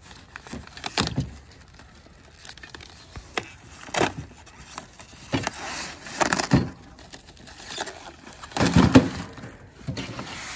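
A cardboard 12-pack case of La Croix sparkling water cans being torn open by hand, with irregular ripping and tearing of the cardboard and aluminium cans knocking together as they are pulled out. The loudest rip comes about nine seconds in.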